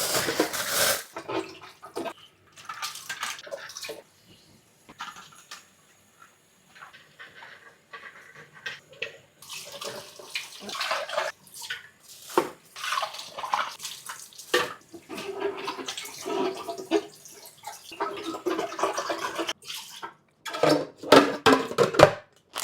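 Tap water running and splashing in a sink as an espresso machine's water tank is rinsed and filled, coming in uneven runs with short pauses and a few knocks of the tank.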